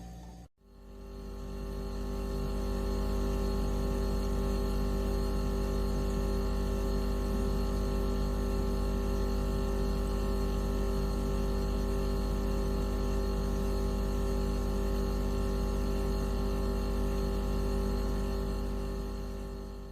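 A synthetic tone track: a steady drone of many stacked, unchanging sine tones over a deep hum, played as an anti-mosquito repellent sound. The previous track cuts out about half a second in, then this one fades in over a couple of seconds, holds steady, and fades out near the end.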